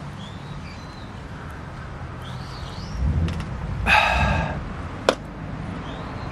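A pet's short call about four seconds in, with faint bird chirps before it and a single sharp snap soon after.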